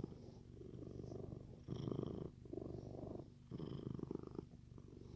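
Siamese cat purring close to the microphone, swelling and easing with each breath in and out, about once a second.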